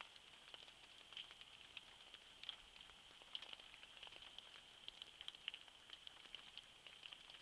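Faint outdoor night ambience: a steady high-pitched chirring that pulses every so often, with scattered soft ticks and no thunder.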